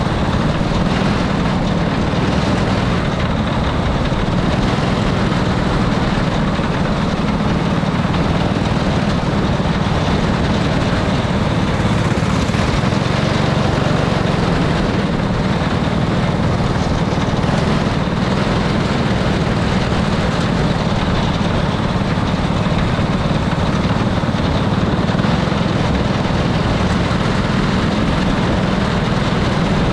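Go-kart engine running at steady speed, heard on board the kart: a loud, constant drone that does not rise or fall.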